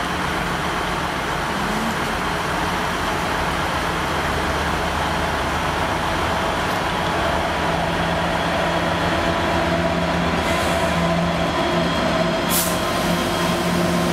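Class 66 diesel-electric freight locomotive's two-stroke V12 engine running as it approaches and draws alongside, hauling flat wagons; its engine note grows louder from about halfway through, with brief sharp hisses near the end.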